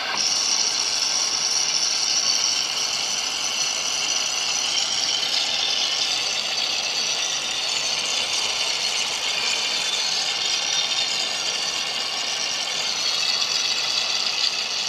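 Mollar Professional HPW500, a small 500-watt electric pressure washer, running as its nozzle jets water onto an air-conditioner evaporator coil: a steady hiss of spray with a mechanical rattle beneath.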